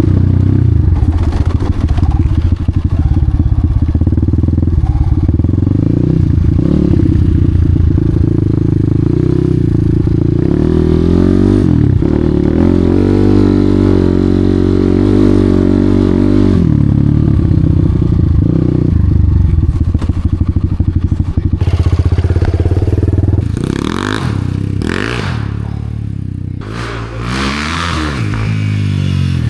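Enduro dirt bike engine running hard under load, with the throttle worked on and off. Near the end the revs swing up and down sharply several times.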